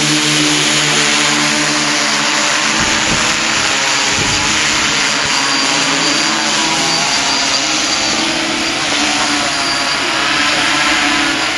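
Small quadcopters' electric motors and propellers whirring steadily, a dense hiss with a buzzing hum whose pitch wavers as the throttle changes.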